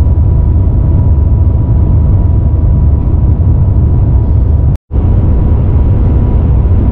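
Shanghai maglev train running: a loud, steady, deep rumble with a faint steady tone above it. The sound cuts out for a split second just under five seconds in.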